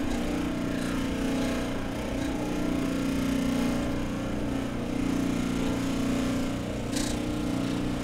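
A motor running with a steady low hum, swelling slightly now and then; a short hiss about seven seconds in.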